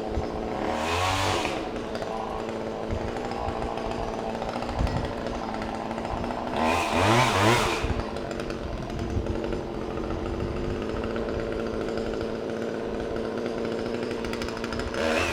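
Chainsaw idling steadily and revved up briefly twice, about a second in and again around seven seconds in.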